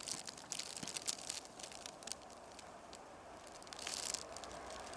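Faint scattered crinkling and light clicking of close handling noise, with a short breathy hiss about four seconds in.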